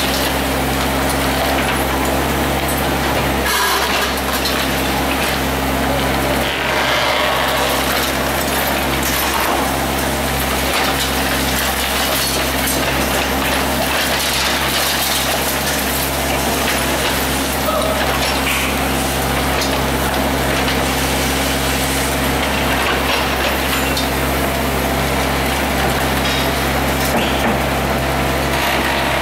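Excavator engine running steadily under hydraulic load while an MTCR 04 hydraulic demolition shear crushes a reinforced concrete beam, with irregular crunching and cracking of concrete breaking up in its jaws.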